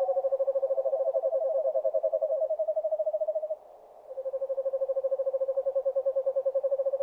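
Owl calling: two long, fast trills on an almost steady pitch. The first breaks off about three and a half seconds in, and the second starts half a second later and runs to the end.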